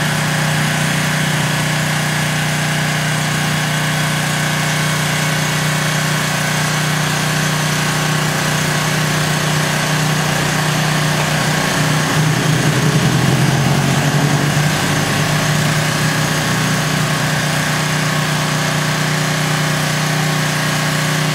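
Engine of a boom lift truck running steadily at idle. About halfway through, its note shifts and it grows a little louder for a few seconds.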